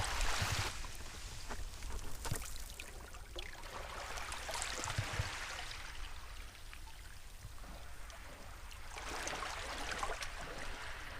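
Small waves lapping and washing on a beach at high tide, swelling and fading every few seconds.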